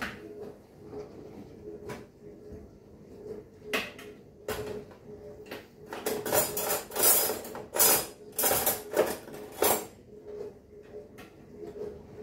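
Metal cutlery and kitchen utensils clinking and clattering in a drawer's plastic cutlery tray as they are picked up and moved around: a few separate clinks at first, then a dense run of clattering over about four seconds in the second half.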